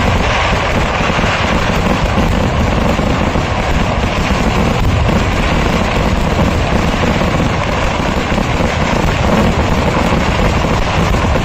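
Festival fireworks barrage: crackers going off so densely that they merge into one loud, steady rumbling crackle with no gaps.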